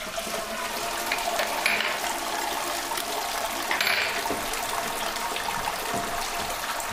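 Wort pouring and splashing steadily from a lifted stainless-steel mesh grain basket back into the brew kettle as the spent grains drain at the end of the mash. It starts as the basket comes up.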